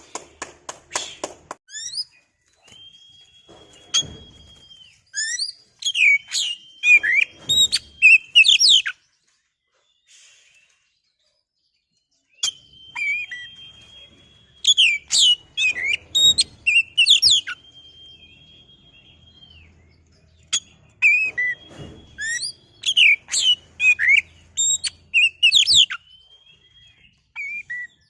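Oriental magpie-robin (kacer) singing: long, level whistled notes held a second or two, broken up by quick, varied chirps and trills. There is a pause of a few seconds near the middle. It is the kind of song used as a lure to set other magpie-robins singing.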